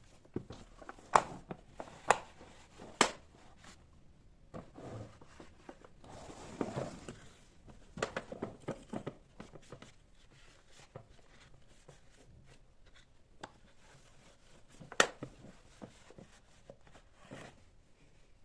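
Household objects being handled during cleaning: a series of sharp knocks and clicks, the loudest early on and one near the end, with a brief rustle in the middle.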